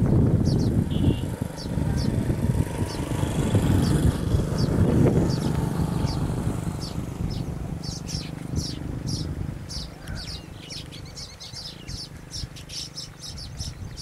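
Short, high chirps of weaver birds, sparse at first and coming thick and fast in the second half. Under them a low rumble, loudest in the first few seconds, fades away.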